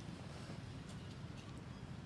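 Steady low outdoor background rumble with a few faint, short high ticks scattered through it.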